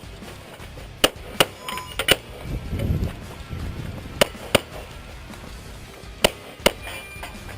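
About eight handgun shots fired in quick pairs, as in double taps, a third of a second or so apart within each pair. Some shots are followed by brief ringing.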